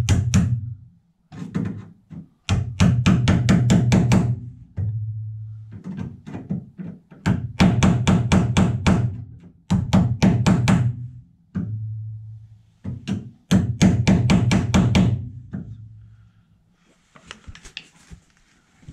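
Hammer driving a sharp chisel into the spot-welded lip of a classic Mini's steel outer sill, to split the welds and peel the panel off. The blows come quickly, several a second, in bursts of one to two seconds with short pauses between, ending in a few lighter taps.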